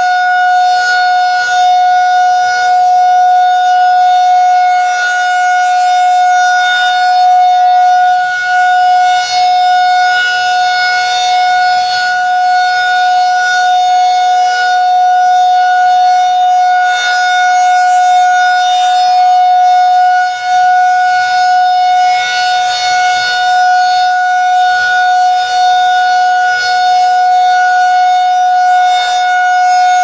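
Federal Signal 2001-SRNDC rotating tornado siren sounding a steady, held tone during a test, swelling and fading as the horn turns.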